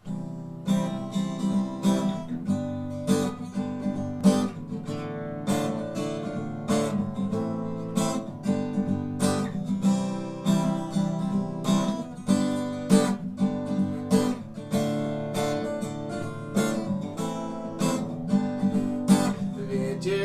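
Acoustic guitar strummed in a steady rhythm, a chord-strummed intro with no singing.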